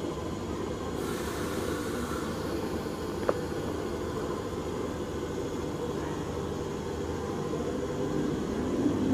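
Electric train at the platform giving a steady low rumble, with a short hiss about a second in and a single sharp click a little after three seconds.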